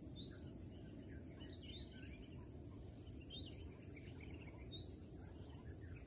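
Rural outdoor ambience: a steady high-pitched insect drone, with a short rising bird chirp about every second and a half, over a low even background rumble.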